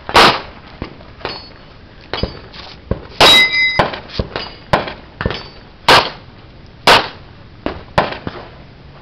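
A string of pistol shots at uneven intervals, a few much louder than the rest, with metallic rings from steel targets being hit; the clearest ring hangs for about half a second around three seconds in.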